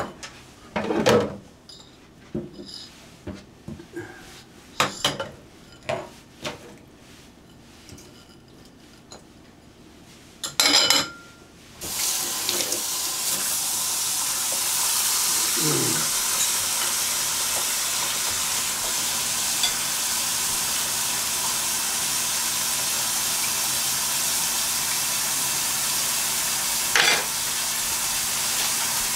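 Dishes clinking and knocking as they are set down in a stainless-steel kitchen sink, then the tap is turned on about twelve seconds in and runs steadily into a basin in the sink, with one more clink near the end.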